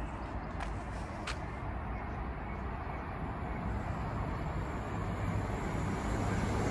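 A CrossCountry Voyager diesel-electric multiple unit approaching along the line, a low rumble growing steadily louder. A couple of sharp clicks come in the first second or so.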